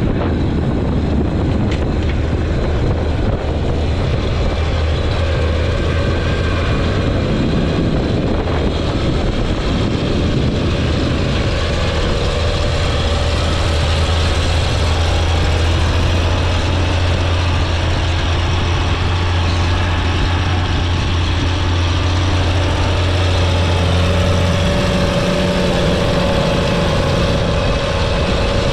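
Case IH Steiger 9350 articulated tractor's diesel engine running under load as it pulls a cultivator through the soil: a loud, steady deep drone that changes about three-quarters of the way through, when a higher tone takes over as the tractor comes alongside.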